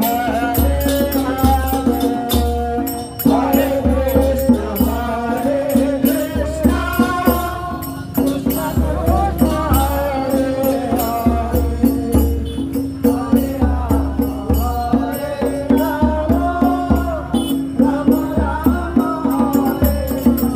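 Harinam kirtan: a voice sings a devotional chant over a steady beating hand drum and the bright, rhythmic clashing of karatalas, small hand cymbals.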